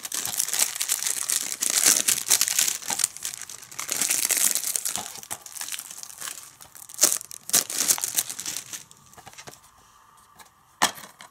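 Plastic shrink-wrap being torn and peeled off a DVD case, crinkling and crackling in uneven spurts that die down about nine seconds in. A single sharp click near the end.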